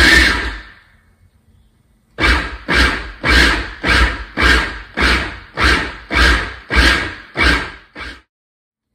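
Food processor motor pulsed in short bursts while mixing butter-and-flour pie dough as water and vodka are poured in: one pulse at the start, then after a pause about eleven quick pulses, roughly two a second.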